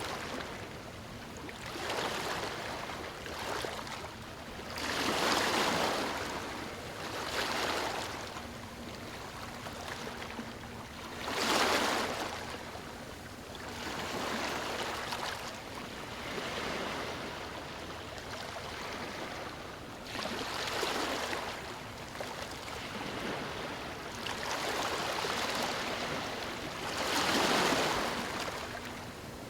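Small waves breaking and washing over a stony shore, the noise swelling and ebbing every few seconds, with a few louder surges among softer ones.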